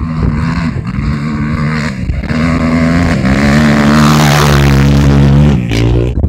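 Off-road race machine's engine revving hard as it passes close by. It grows louder to a peak about four to five seconds in, then falls away sharply near the end.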